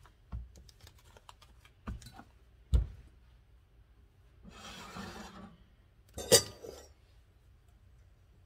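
Kitchen handling sounds: a glass measuring cup and a dish towel being set down on a stone counter, with a few light knocks and clinks in the first three seconds. A scraping rustle comes about halfway, then the loudest sound, a sharp metal clank a little past six seconds as a saucepan is lifted off the gas stove's grate.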